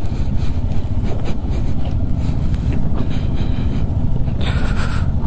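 Motorcycle engine running at low speed over loose rocks, a steady low rumble mixed with wind buffeting the microphone, and a short hiss about four and a half seconds in.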